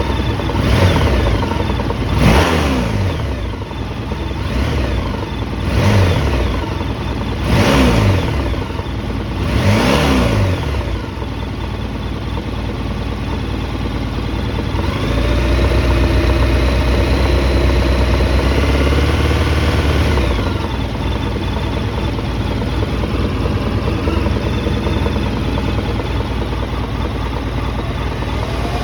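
Honda VFR1200F's 1237 cc V4 engine idling, blipped up and back down several times in quick succession, then held at a raised speed for about five seconds before settling back to idle. The engine has a knocking sound that comes only when it is hot, cause unknown to the owner.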